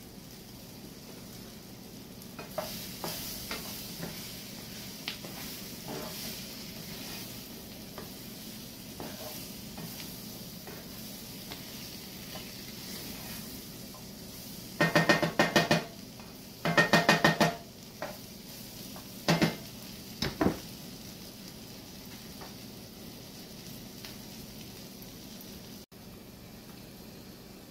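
Chopped onions, celery and carrots sizzling in a cast-iron skillet while a spatula stirs them, with a few light taps on the pan. Past the middle come four loud bursts of the spatula scraping rapidly back and forth across the skillet, two of about a second and two short ones.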